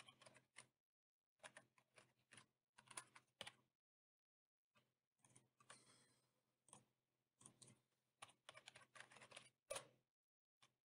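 Faint typing on a computer keyboard: bursts of quick keystrokes broken by short pauses.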